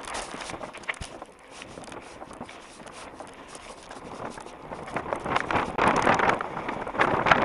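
Wind rushing over a helmet-camera microphone, with the rattle and tyre noise of a mountain bike riding over rough ground, getting louder about five seconds in as the bike speeds up along a gravel path.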